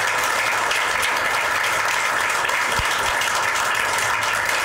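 Audience applauding: many hands clapping together in a steady patter that eases off right at the end.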